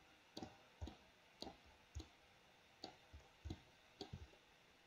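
Faint, irregular clicking of a computer mouse, about nine short clicks at roughly two a second.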